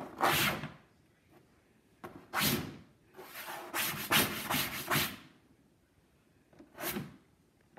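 A hand rubbing across a chalkboard, smearing chalk writing. It comes in separate strokes: one at the start, one after about two seconds, a quick run of strokes in the middle, and a short one near the end.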